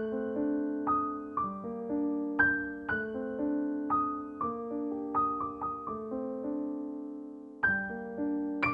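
Background piano music: single struck notes and chords that ring and fade, a slow gentle phrase with a longer held note near the end before a new phrase begins.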